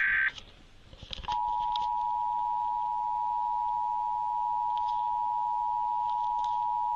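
The last burst of an Emergency Alert System digital header (SAME data) ends just after the start. After about a second's pause, the EAS two-tone attention signal (853 and 960 Hz) comes on and holds steady.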